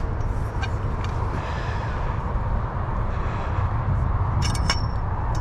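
Several sharp metallic clinks with a brief ringing about four and a half seconds in, from the tent's galvanized steel frame poles being pulled apart and handled, over a steady low rumble.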